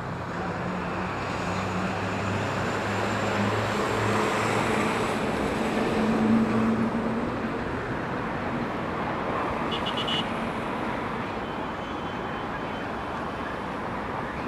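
Steady road traffic noise, with a motor vehicle's engine growing louder and passing about halfway through.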